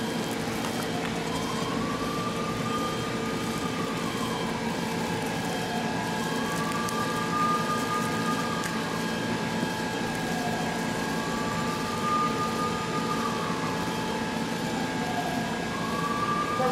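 Shop machinery, a CNC machine and a laser, running: a steady hum with several held tones, and a motor whine that glides up, holds, and glides back down about every five seconds, four times.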